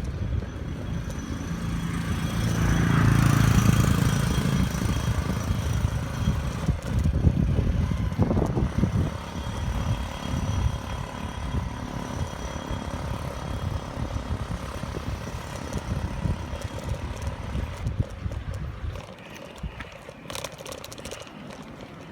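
Wind buffeting an action-camera microphone in an uneven low rumble, with a motor engine swelling and fading about two to five seconds in.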